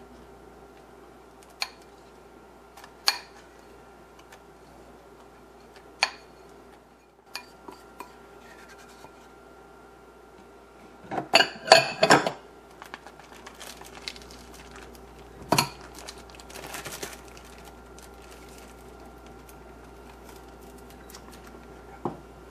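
A utensil knocking and scraping against a ceramic bowl in a few separate clinks, with a louder cluster of clatter about halfway through, as a thick cinnamon-butter mixture is scraped out of the bowl.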